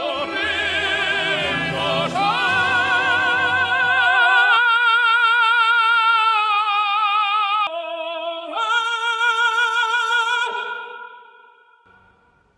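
Operatic singing: a high voice holds long notes with a wide, even vibrato. A low accompaniment drops away about four and a half seconds in, leaving the voice alone, and the voice fades out near the end.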